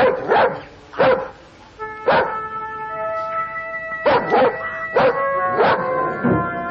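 A dog barking about eight times at an irregular pace, with a pause of a couple of seconds in the middle, over held chords of film score music.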